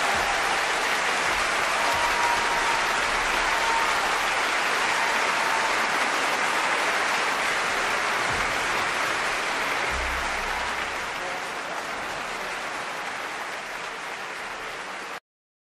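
Concert-hall audience applauding after an orchestral performance, a dense, even clapping that slowly thins and fades, then cuts off abruptly near the end.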